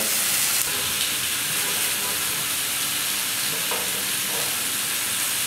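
Marinated T-bone steak sizzling steadily as it sears in a hot ridged grill pan, cooking in the olive oil of its marinade with no oil added.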